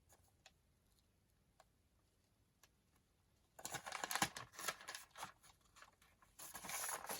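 Sheets of paper being handled: a few faint taps, then rustling and sliding on the work surface, starting about halfway in.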